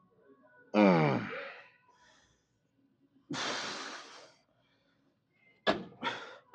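A man's loud straining grunt, falling in pitch, during a rep of lying leg curls, then a long hard exhale of breath. Two short sharp sounds follow near the end.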